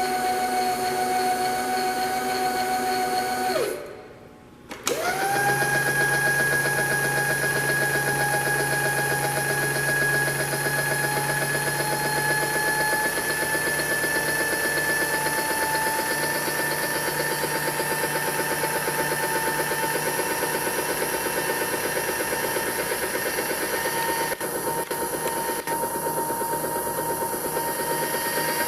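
Bridgeport Series I vertical milling machine's 2 HP spindle motor and drive running with a steady whine. About four seconds in it winds down and stops for a moment, then starts again and spins back up within a second to a steady run.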